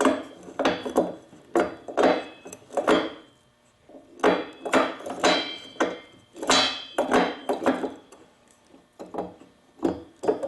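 Irregular series of knocks and clatters, about fifteen in ten seconds, some with a brief metallic ring: hand tools and engine parts of a backpack leaf blower being handled and knocked during disassembly.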